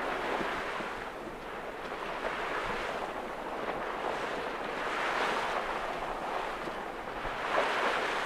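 Water rushing and splashing along the hull of a Westerly Centaur sailing yacht as she sails through a rough sea, with wind on the microphone. The rush swells every two to three seconds as she meets the waves.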